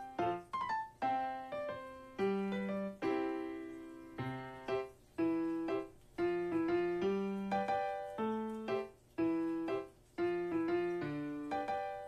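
Background music: a piano-like keyboard playing a melody of separate notes, each struck and fading away.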